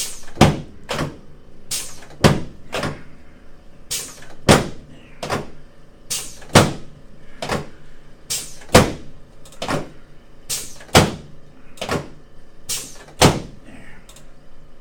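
A series of about twenty sharp thuds during a chiropractic treatment on a table, roughly two a second in short runs with brief pauses between.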